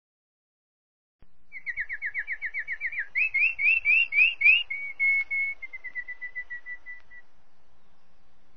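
A bird singing, starting about a second in: a fast run of about a dozen short down-slurred whistles, then five louder up-slurred notes, then a string of short even notes that slow down and fade.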